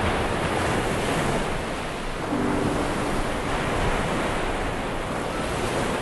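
Steady rush of ocean surf, with wind blowing on the microphone.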